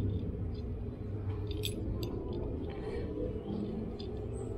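A few small metallic clicks and clinks as an alloy double hook and its small screws are handled and turned with an allen key, over a steady low hum.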